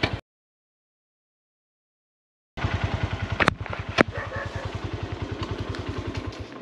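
Small Honda CB150 motorcycle engine running at low speed with an even putter. The sound drops out to dead silence for about two seconds just after the start. Two sharp knocks come half a second apart about three and a half seconds in, and the putter fades near the end.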